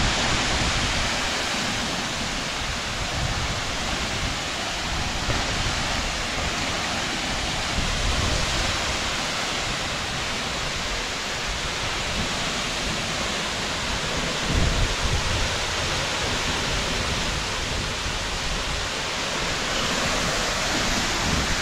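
Birthi waterfall pouring onto rock: a steady, unbroken rush of falling water.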